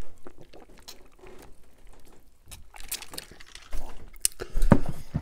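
Close-miked drinking from a paper cup: a sip and swallow, then soft wet mouth noises and small clicks, with a few louder handling knocks near the end.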